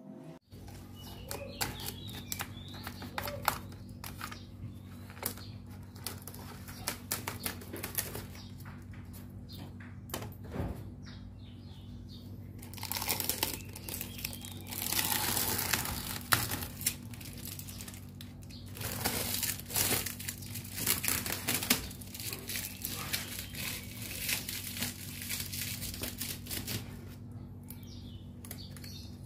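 Light material crinkling and rustling as it is handled, with scattered small taps and clicks, growing louder for two stretches in the middle, over a faint steady low hum.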